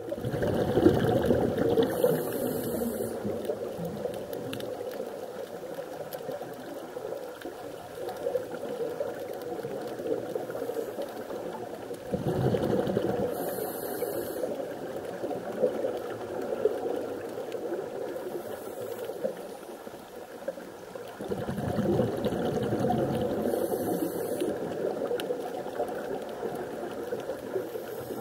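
Underwater sound of a scuba diver breathing through a regulator: three swells of bubbling exhaust about ten seconds apart, each with a short hiss, over a steady underwater wash.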